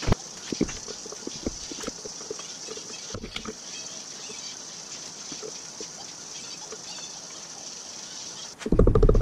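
Scattered metal clinks and knocks of a socket ratchet working the connecting-rod cap nuts of a Ford 59AB flathead V8, over a steady high hiss. A loud, low, pulsing burst of sound starts suddenly near the end.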